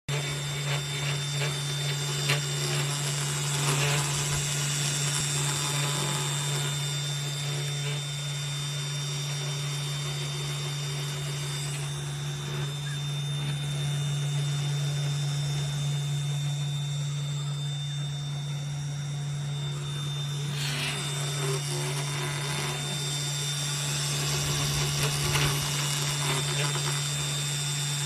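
CNC 2417 desktop router's spindle motor running steadily while its bit engraves characters into a board: a constant low hum with a thin, high whine.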